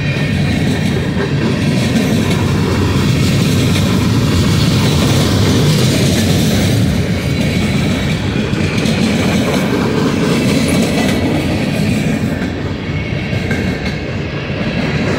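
Freight train of coke hopper cars rolling past at close range: a steady, loud rumble of steel wheels on the rails.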